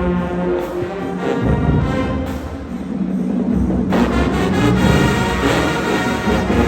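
High school marching band playing, brass-heavy, with held chords over low drum beats; about four seconds in the sound grows brighter and fuller as more of the band joins.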